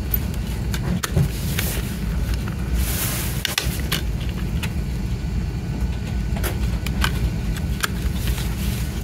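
Scattered light clicks and taps of plastic as hands press and lift Blu-ray discs on the hubs of a clear plastic disc case, over a steady low rumble.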